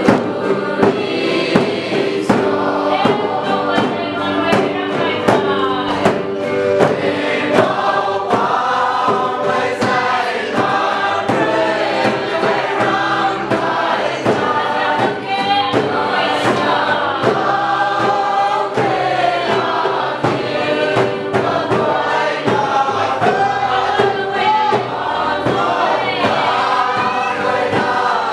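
A group of men and women singing a song together, with a hand drum beating time under the voices.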